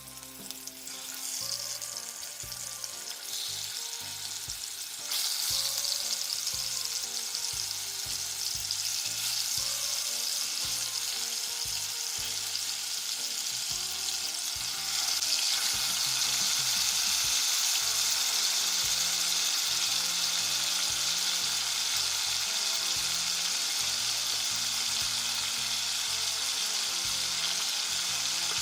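Food frying in a pan, a steady sizzle that gets louder about five seconds in and again about halfway through.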